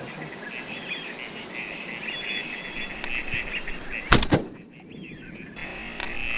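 A Huglu BA 312 semi-automatic 12-gauge shotgun fires about four seconds in, a loud sharp blast followed a quarter second later by a second sharp crack. Steady high-pitched chirping goes on in the background.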